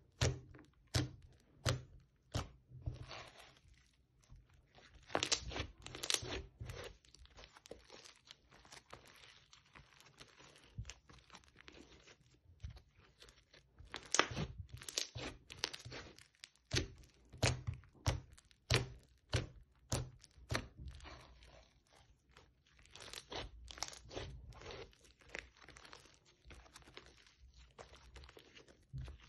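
Hands pressing, kneading, folding and stretching crunchy foam-bead slime: irregular crunchy crackles and sharp snaps, several a second, as the beads and sticky slime pop and pull apart.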